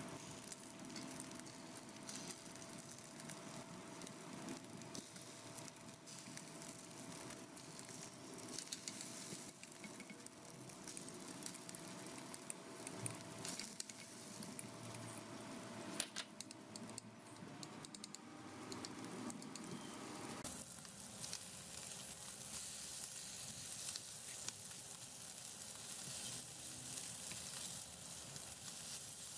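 Marinated chicken breast pieces sizzling and frying in hot oil in a frying pan, with occasional light taps of chopsticks or a spatula on the pan. About two-thirds of the way through, the sizzle grows louder and brighter.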